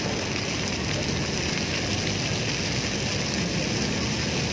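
Fountain jets spraying up and splashing back into the pool: a steady hiss of falling water.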